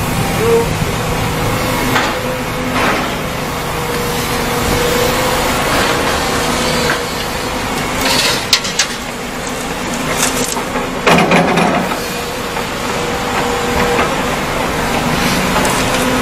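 Excavator diesel engines running steadily while the buckets load a steel tipper trailer. Loads of dirt and rock land in the trailer bed with clattering thuds, a few times between about 8 and 12 seconds in, the loudest near the middle.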